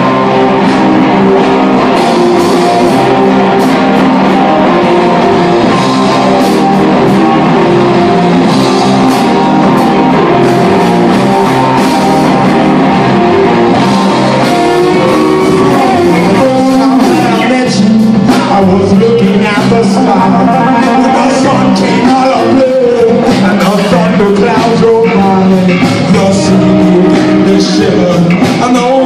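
Live band playing: electric guitars, bass guitar and drums, loud and continuous.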